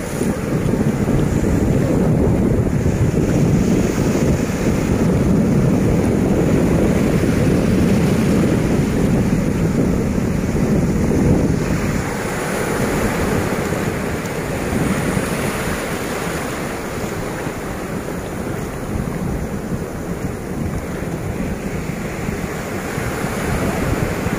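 Sea surf breaking and washing over the sand, with wind buffeting the microphone. Slightly louder over the first half, easing a little about halfway.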